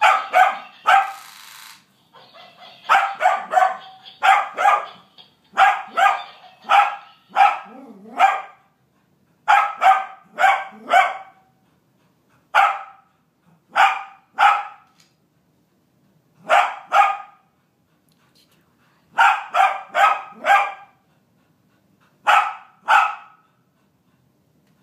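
Small spaniel barking repeatedly in quick clusters of two to four sharp barks, with short pauses between clusters.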